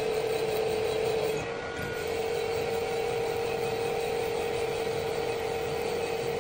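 Drill press running, its twist drill boring a hole into a steel crankshaft counterweight to take weight off the heavy side for balancing. The machine gives a steady hum that dips briefly about a second and a half in.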